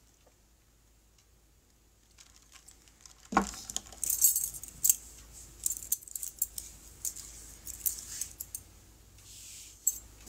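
Near silence, then about three seconds in a knock, followed by a run of light clinks and jangles of small hard objects being handled close to the microphone, with a brief soft hiss near the end.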